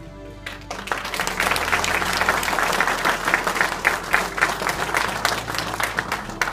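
Audience applauding, a dense patter of many hands clapping that starts about half a second in and stops near the end.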